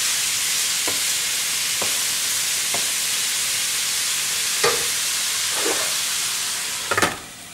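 Chopped red onions sizzling in hot oil in a stainless steel pan, with a few light scrapes of a wooden spatula early on and a clack as the spatula is put down about halfway through. Near the end a glass lid clanks onto the pan and the sizzle drops to a quieter, muffled hiss.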